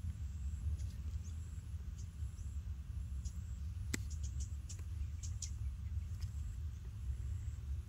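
Outdoor background dominated by a steady low wind rumble on the microphone, with a few faint sharp clicks about four seconds in and again between about four and a half and five and a half seconds.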